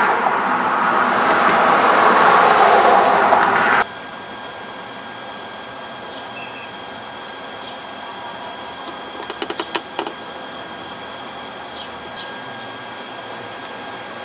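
Loud rushing noise of a passing vehicle, cut off abruptly about four seconds in. Then a much quieter, steady city background hum with a thin high whine, and a short burst of clicking a little past the middle.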